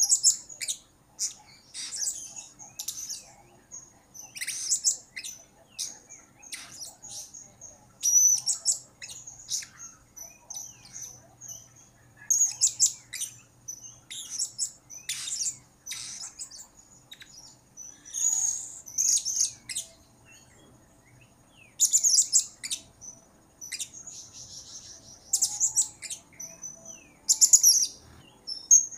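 Blue-crowned hanging parrot (serindit) calling in full voice: shrill, very high chirps in quick clusters, repeated every second or two with short pauses.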